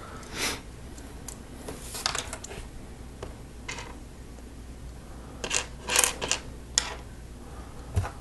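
Small plastic Lego Technic pieces being handled and pressed together: scattered sharp clicks and short rustles of loose parts, with a cluster of clicks a little past halfway.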